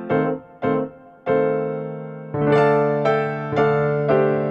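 Background music: a keyboard playing a slow tune of separate struck notes that ring and fade, moving into fuller chords about halfway through.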